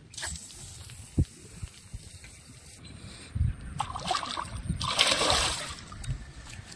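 Water sloshing and splashing, with a sharp knock about a second in and a louder rush of splashing around the five-second mark.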